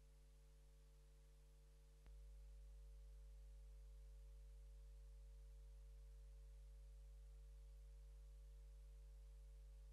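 Near silence apart from a steady low hum on the audio feed; about two seconds in, a faint click and the hum gets louder.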